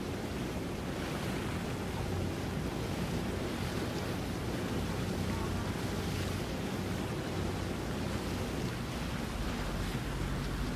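Wind rushing on the microphone over water noise, with the low steady hum of boat engines; the hum grows stronger near the end.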